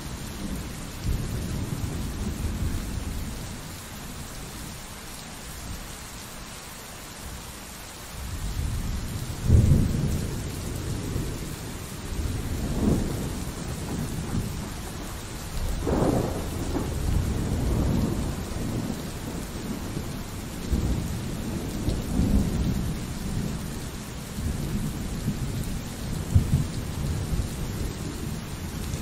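Steady rain with rolling thunder. A low rumble dies away in the first few seconds, a loud thunderclap breaks about ten seconds in, and further cracks and rumbles follow one after another.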